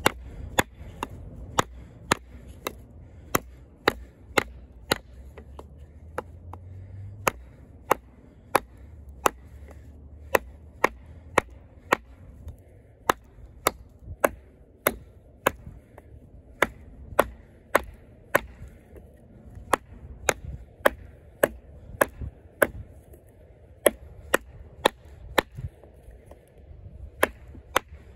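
Oerla OLK-033RD fixed-blade knife, 420HC steel, chopping into a small piece of hard wood: a long, steady series of sharp blade strikes, roughly one every half second to two-thirds of a second.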